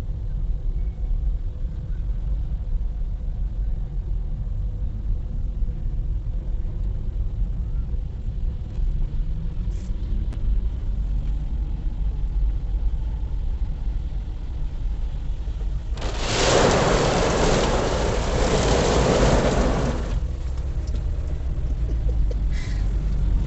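Low steady rumble of a car cabin in traffic. About sixteen seconds in, a loud hiss of water lasting about four seconds as spray from a burst water main pelts the car's windshield and body while it drives through the jet.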